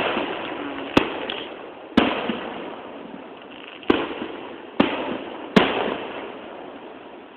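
Aerial fireworks shells bursting overhead: five sharp bangs over about five seconds, each followed by a fading rumble, recorded through a camera phone's thin-sounding microphone.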